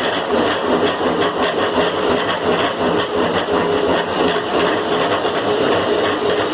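Climax BB5000 portable line boring machine taking a facing cut in steel with a carbide tool: steady, dense machining noise with a ringing tone that comes and goes. The ringing is chatter from a cut heavier than it ought to be.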